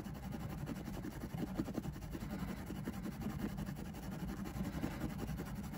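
Faint, irregular scratching of a metal bottle brush worked by hand in a threaded seat belt bolt hole in a car floor, scrubbing rust out of the threads, over a low steady hum.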